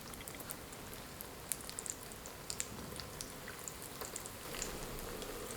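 Breadcrumb-coated glutinous rice cakes frying in hot oil in an electric griddle pan. A faint, steady sizzle runs under scattered sharp crackles and pops of oil.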